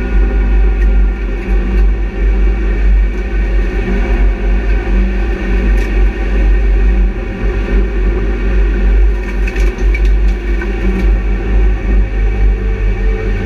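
BMW Compact Cup race car's engine running under load at racing speed, heard from inside the cabin: a loud, steady, even-pitched drone over a heavy low rumble.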